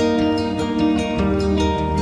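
Instrumental background music of plucked strings, a run of picked notes over held chords, with a deep bass note coming in about halfway.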